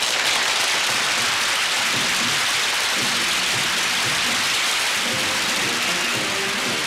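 Studio audience applauding steadily at the end of a sitcom episode, with music coming in faintly about halfway through.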